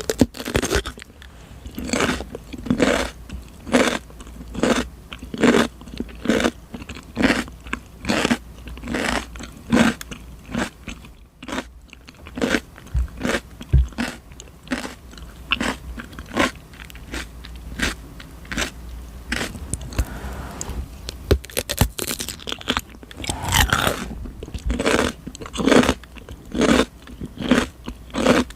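Raw cucumber being chewed close to the microphone: crisp, wet crunches at a steady rhythm of about two a second. The crunching pauses briefly about eleven seconds in, goes softer and sparser for a while, then picks up again near the end.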